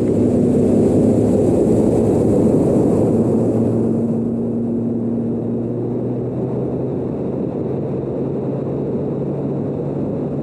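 Bass boat's outboard motor running steadily at speed, a steady engine hum under a loud rushing noise.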